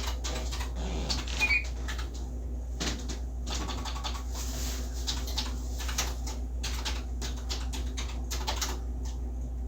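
Electric typewriter being typed on: uneven runs of sharp key strikes over a steady low hum.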